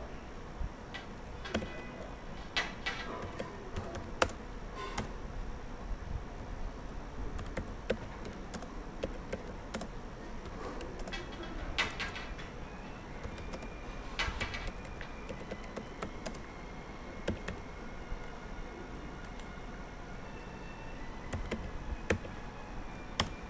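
Computer keyboard being typed on: irregular runs of keystrokes with short pauses, a few keys struck harder than the rest.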